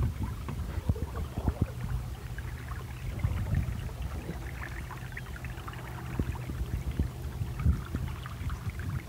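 Water gurgling and lapping along the hull of a small sailing punt moving slowly through calm water, with many small irregular splashes over a low steady rumble.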